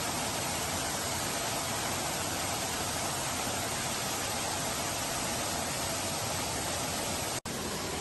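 Waterfall: a steady rush of water spilling off a rock overhang and splashing into the pool below. Near the end it drops out for a split second, then carries on unchanged.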